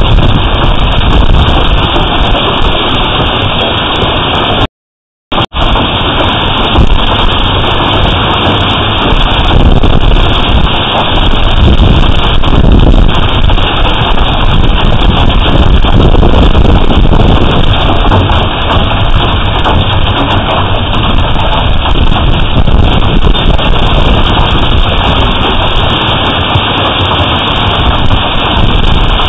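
Hail and rain pelting down in a storm, with wind buffeting the outdoor security camera's microphone: a loud, steady rush of noise with a deep rumble and a dense patter of hailstone hits. The sound drops out completely for about half a second about five seconds in.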